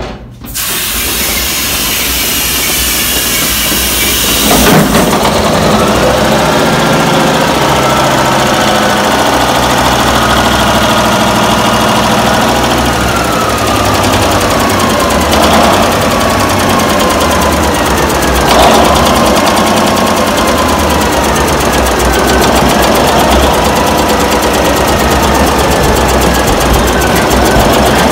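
Restored GM 300 kW ship service diesel generator being started: a loud hissing rush as it is turned over, then about five seconds in it fires and runs loudly, its pitch wavering up and down as the speed settles.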